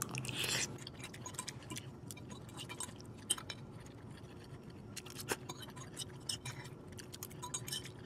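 Metal fork clicking and scraping lightly against a ceramic plate as leftover pasta is gathered up: scattered soft ticks, with a couple of sharper clinks around the middle.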